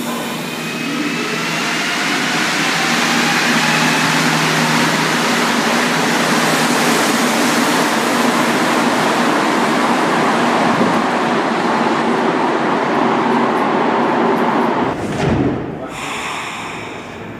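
Rubber-tyred Montreal Metro train pulling out of a station: the traction motors give a rising whine as it speeds up, then a loud, steady running noise as the cars go by. About fifteen seconds in, the sound drops abruptly to the quieter hum of a train standing at the platform.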